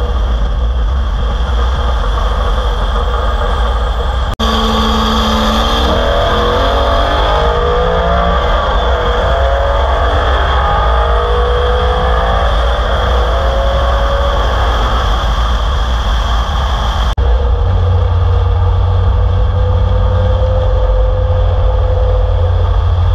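Cammed, straight-piped LS7 V8 of a C6 Corvette Z06 accelerating hard at highway speed, its note climbing repeatedly as it pulls through the gears, under heavy wind noise on an outside-mounted microphone. The sound cuts abruptly twice, about four and seventeen seconds in.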